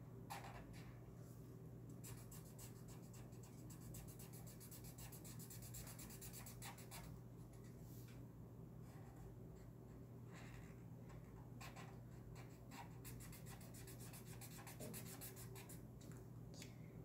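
Marker tip scratching on paper in quick runs of short back-and-forth strokes as a drawing is coloured in, with brief pauses between runs. A faint steady hum sits underneath.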